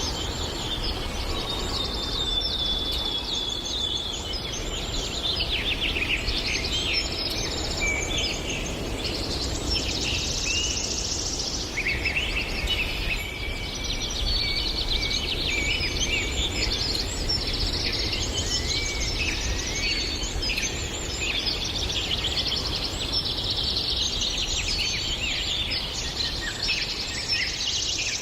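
A chorus of several birds singing and calling at once, with many overlapping chirps, rapid trills and short whistled notes, over a steady low background rumble.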